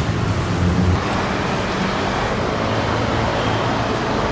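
Road traffic: cars and motorbikes passing in a steady wash of engine and tyre noise. A heavier low engine drone fills the first second.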